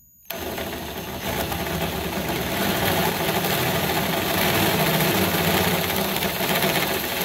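Power drill running a step drill bit through the thin aluminum frame of a storage-compartment door, enlarging a 5/16-inch hole to the bit's third step. The drill starts abruptly just after the beginning and runs steadily under load, cutting metal.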